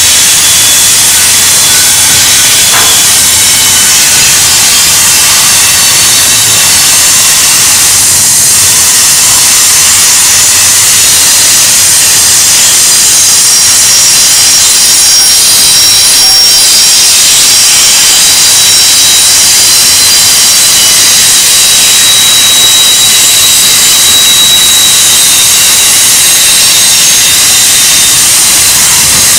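Steel wheels of double-stack intermodal well cars squealing and hissing against the rail as they roll through a curve: a loud, continuous high-pitched screech with several thin tones that waver slightly.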